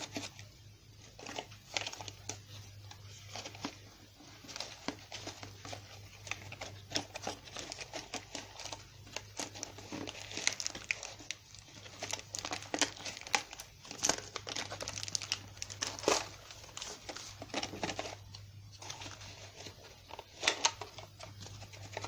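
Plastic toy packaging crinkling, rustling and tearing as it is handled and opened, in dense irregular bursts with sharper clicks, over a faint steady low hum.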